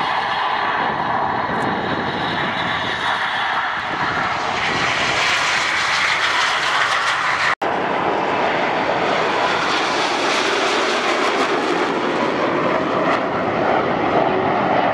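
Red Arrows BAE Hawk T1 jets' Rolls-Royce Turbomeca Adour turbofans running at high power as the formation takes off and climbs away: a loud, steady jet roar, broken once by a split-second drop-out about seven and a half seconds in.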